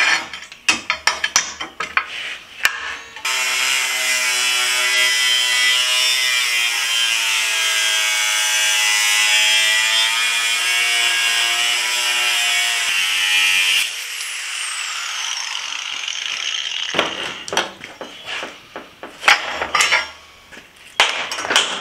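Angle grinder with a cutoff wheel slicing through a steel plate: it runs for about ten seconds with a steady whine whose pitch sags as the wheel bites into the cut, then is switched off and winds down with a falling whine. Clicks and clanks of the plate and tools being handled come before and after the cut.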